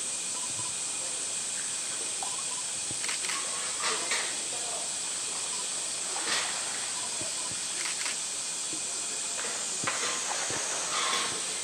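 Short splashes and sloshing of water, several times, as a polar bear paws at and bites a floating blue plastic tank in its pool, over a steady high hiss.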